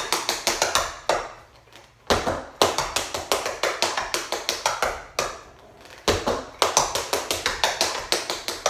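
Tap shoes striking a bamboo floor mat in fast runs of taps in a triplet rhythm. The taps come in three bursts, with brief pauses about a second in and about five seconds in.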